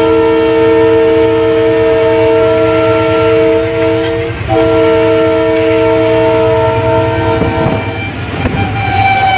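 Locomotive air horn sounding a chord of several notes in two long blasts, the first about four seconds and the second about three, with a brief gap between, over the steady rumble of the running train. Near the end a single higher horn note starts and begins to fall in pitch.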